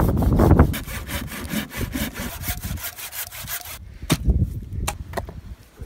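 Saw cutting through a wooden branch in quick back-and-forth strokes that die away about four seconds in, followed by a few separate knocks.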